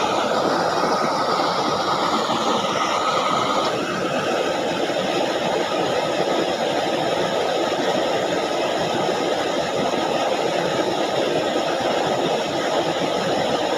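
Steady rushing of water flowing into and through a shallow ditch, with a faint high steady whine over it for the first few seconds.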